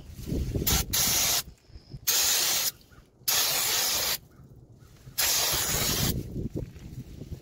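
Aerosol can of non-chlorinated brake cleaner spraying in four bursts of about a second each, the jet hissing and splashing onto the wheel spindle to wash off old bearing grease.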